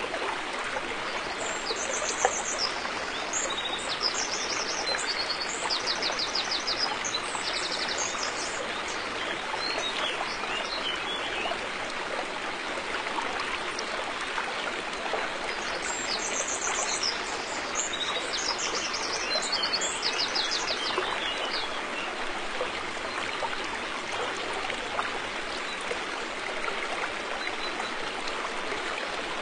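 River water flowing steadily, a dense even rushing. A songbird sings rapid high notes in two bouts, the first soon after the start and the second a little past the middle.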